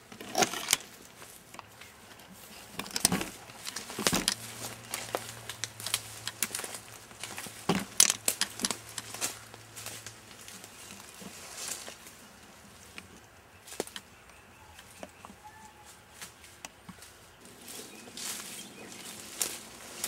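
Footsteps crunching and rustling through dry leaf litter and undergrowth, an irregular run of crackles and brushing sounds.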